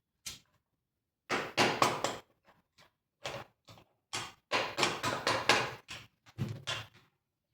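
Tools and metal chainsaw parts knocking and clattering on a workbench during disassembly: a string of short clunks and rattles in uneven bursts, loudest about two seconds in and again around five seconds in.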